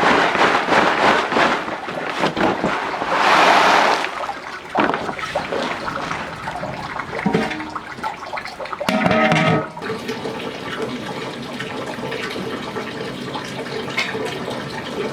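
Running, splashing water, with a loud rush of water about three seconds in, under background music.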